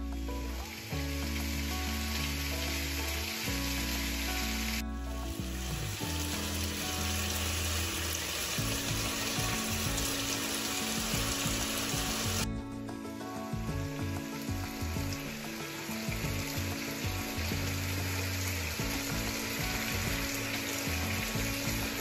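Pot of white rice steaming on the heat with a steady sizzling hiss that changes abruptly about 5 and 12 seconds in, over background music with long held notes.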